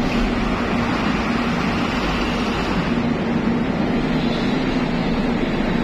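Steady engine rumble with a constant low hum on a ferry's enclosed vehicle deck.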